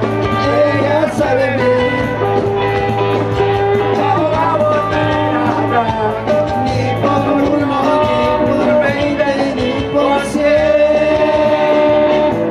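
Live 1980s-style rock music played loud through a PA: electric guitar and band backing, with long held melody notes.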